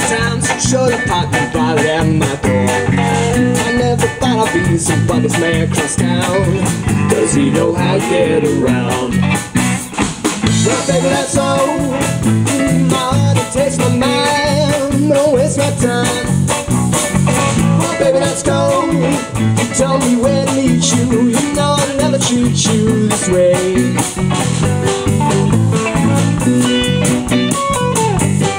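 A live rock band playing a song: an electric guitar over a drum kit, with a man singing.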